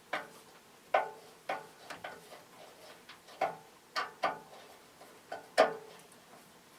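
Irregular metallic clinks and knocks, about nine, each with a short ring, as metal parts and tools are handled while a 1950s General Electric box fan motor is taken apart.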